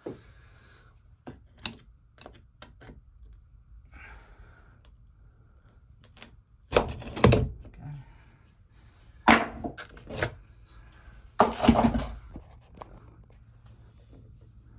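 Clicks and knocks of an adjustable spanner and hands working on the float valve's connector in the tank wall, with a few louder clunks in the second half, as an old washer is worked off the fitting.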